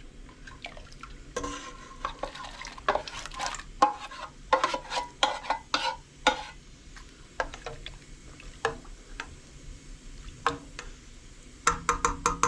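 Metal spoon stirring and scraping in a cooking pot, with irregular clinks and knocks against the pot, some of them ringing briefly.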